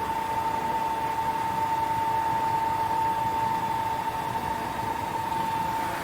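Rhong RG 26E plastic granulator running steadily: a constant whine over an even rushing noise, with no separate knocks or crunches.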